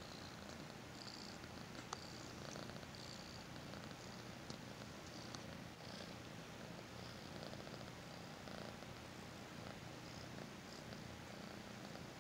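Kitten purring steadily, with a brief sharp click about two seconds in and a few fainter ones after.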